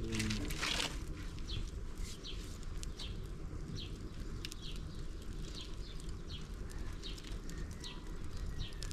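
A small bird chirping over and over, short falling chirps about twice a second, over a low steady rumble. In the first second, a short clatter of firewood being shifted.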